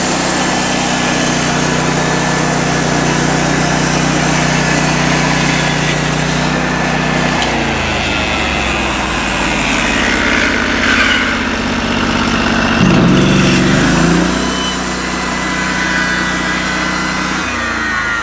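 The 16 hp engine of a Norwood LM29 portable band sawmill running steadily, its note shifting a few times: about seven seconds in, briefly near thirteen seconds, and again near the end.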